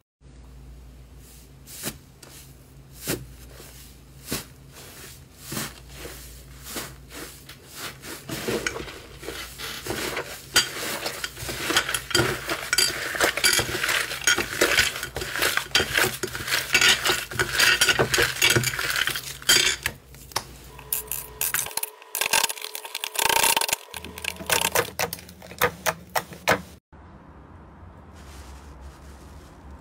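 Slime being handled and pressed: scattered sharp clicks and pops that thicken into dense crackling in the middle, then break off in a few abrupt cuts.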